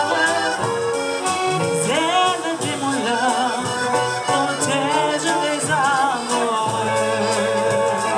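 Live accordion playing a wavering chanson melody with band accompaniment: a steady low double-bass line and light, regular percussion.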